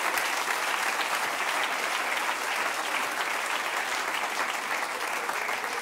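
Theatre audience applauding, a dense, steady clapping that eases slightly toward the end.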